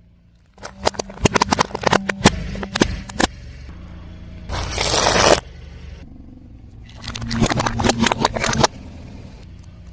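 A car tyre rolling over and crushing brittle objects: three bursts of crunching and crackling, over the low steady running of the car's engine.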